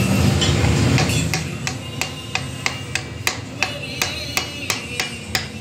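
Light metal-on-metal taps, about three a second, as parts of a steel press-tool die set are knocked into place by hand.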